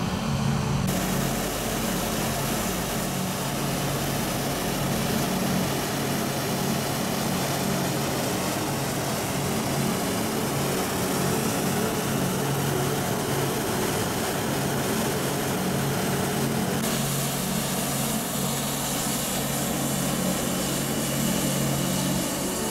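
Hot-air balloon's propane burner roaring steadily, over a steady low engine drone.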